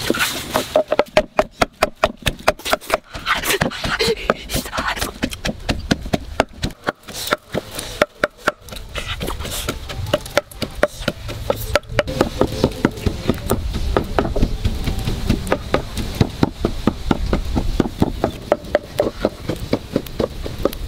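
Pestle pounding in a mortar: a long run of fast, regular knocks. A low rumble comes up under the knocks in the second half.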